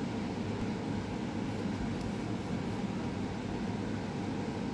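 Steady low mechanical hum with a faint hiss, like a room air conditioner running.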